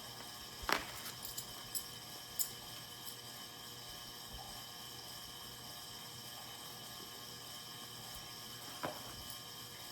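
A few light taps and handling noises from materials being set in place on a switch plate, over a steady room hum from a heating and cooling fan.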